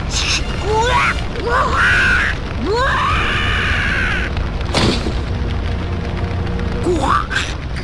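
A man's strained yells, rising and falling in pitch, from an anime character powering up, over a steady low rumble and music. A sharp crack comes about five seconds in.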